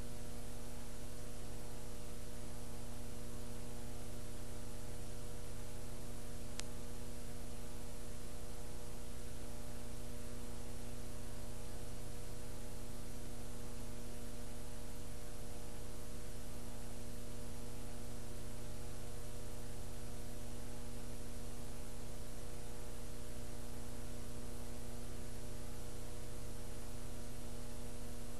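Steady electrical mains hum with hiss, unchanging throughout, with a single faint tick about six and a half seconds in.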